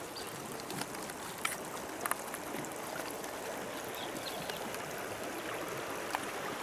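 Steady flowing water, with a few light clicks about one and a half and two seconds in.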